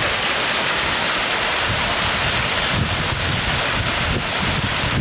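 Ortega Falls' main drop pouring, heard at its base as a steady loud rush of falling water. Low gusts of wind buffet the microphone from about two seconds in.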